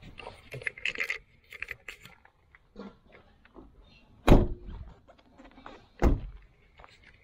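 Small clicks and rattles of parts being handled, with two heavy thumps, about four and six seconds in, the first the louder.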